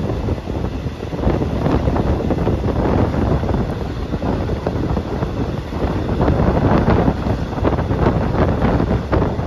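Wind buffeting the phone's microphone: a loud, unsteady rushing that swells and dips.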